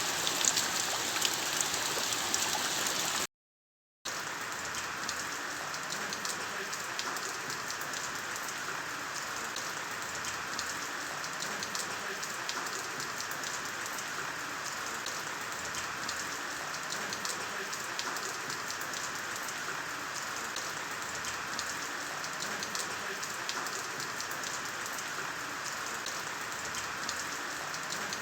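Steady rain, a dense patter of drops striking a surface. About three seconds in it cuts out to silence for under a second, then resumes a little softer.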